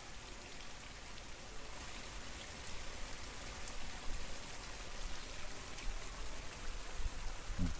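Steady hiss of running or falling water, with a few faint scattered ticks.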